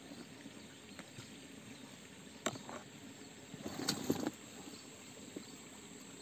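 Faint outdoor ambience at a small stream with a steady hiss, a single sharp click about two and a half seconds in and a brief rustle of handling around four seconds in.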